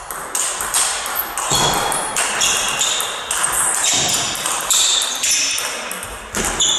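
Table tennis rally: the celluloid ball clicking off rubber rackets and the table a couple of times a second at an uneven beat, with short high squeaks of sports shoes on the wooden hall floor.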